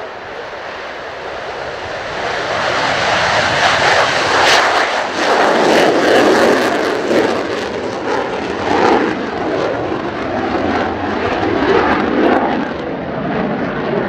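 Mitsubishi F-2 fighter's single F110 turbofan at full afterburner on takeoff. The noise builds over the first few seconds as the jet rolls and lifts off, then stays loud as a crackling rumble while it climbs away.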